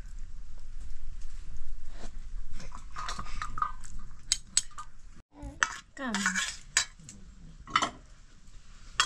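A metal spoon stirring and scraping noodles in a frying pan, with sizzling and frequent clinks against the pan. About five seconds in the sound breaks off abruptly, and separate clinks of dishes and cutlery follow.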